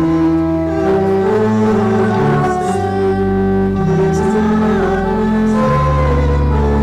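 Church organ playing a hymn in held chords over a deep bass line, the chords changing every second or so.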